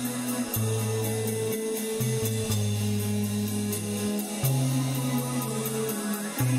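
Rock music with no singing: guitar and drum kit over long, held bass notes that change pitch every second or two, with a cymbal ticking about four times a second.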